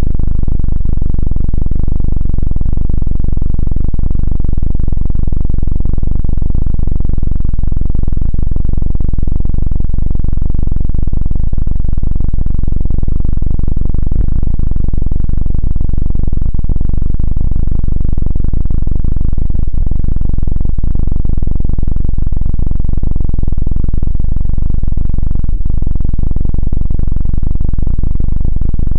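Loud, steady, distorted helicopter-style 'dududu' rotor sound: a dense low rumble with a rapid flutter and little high end, unbroken throughout.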